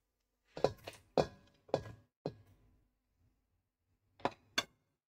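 Hard, dried stockfish pieces knocking against the pot as they are put in: about five sharp knocks in the first two seconds, then two more near the end.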